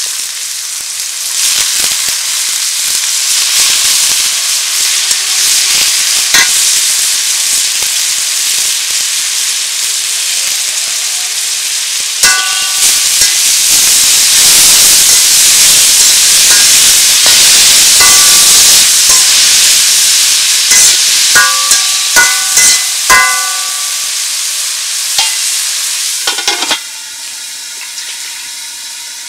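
Shredded potato sizzling loudly in hot oil in a metal karahi, stirred with a metal spatula that clanks and rings against the pan a number of times in the middle. Near the end the sizzle suddenly drops as the pan is covered with a lid.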